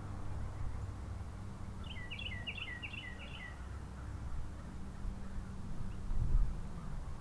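A songbird gives a quick run of about five repeated two-part chirps, each a sharp note dropping into a lower one, about two seconds in. A steady low rumble of background noise runs underneath.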